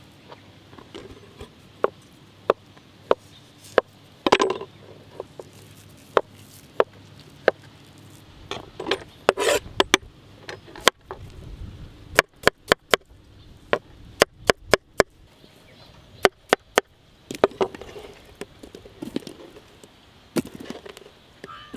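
Kitchen knife knocking on a wooden cutting board as dragon fruit is cut: sharp single taps, with quick runs of taps in the middle. Softer rustling and squishing in between as the fruit is handled and pulled apart by hand.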